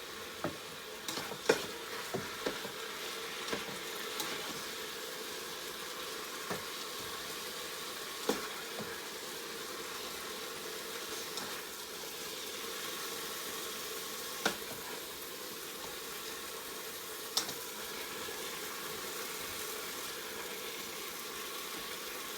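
Chicken breast pieces sizzling in hot oil in a crock pot on its brown/sauté setting, a steady hiss broken by a few sharp clicks and knocks of a utensil against the pot as the browned pieces are lifted out.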